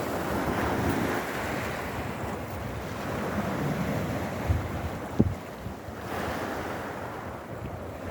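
Sea waves surging in and washing over rocks and pebbles, the surf swelling and easing in a slow rhythm. Wind buffets the microphone, with two short low thumps about halfway.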